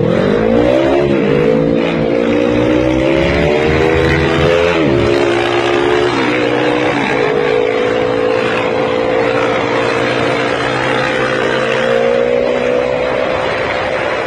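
Small motorcycle engine accelerating and shifting up through the gears: its pitch climbs, drops at each shift about 1, 5, 6 and 7 seconds in, then holds at a steady, slowly rising pitch as the bike cruises, over a steady rush of wind and road noise.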